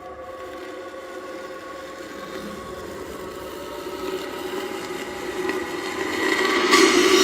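A steady droning hum of several held tones, swelling louder through the second half as a hissing, rushing noise builds up under it.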